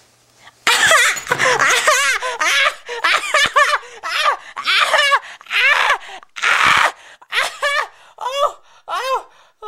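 A person laughing hard and high-pitched in a long run of loud bursts, starting about a second in and trailing off into shorter, separate whoops near the end.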